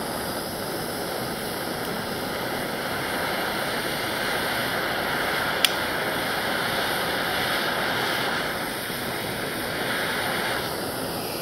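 MAP gas hand torch burning with a steady hiss as it heats an aluminum joint for Alumiweld brazing rod, with a single sharp click about halfway through.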